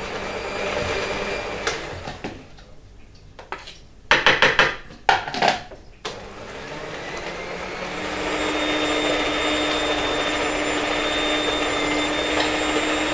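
Philips Cucina stand mixer running, its beaters working butter and sugar into a dough. A few loud knocks and clatters come in the middle, and from about eight seconds in the mixer runs louder and steadier at a higher speed.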